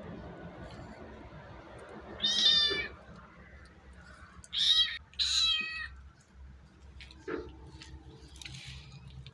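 Three high-pitched, drawn-out cries from a young animal: one about two seconds in, then two close together about halfway through.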